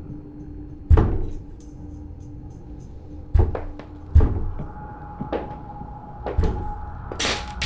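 Heavy, irregular thuds of banging, about six in all, the loudest about a second in and about four seconds in, with a longer scraping burst near the end. Under them a steady music tone holds and steps up in pitch about halfway through.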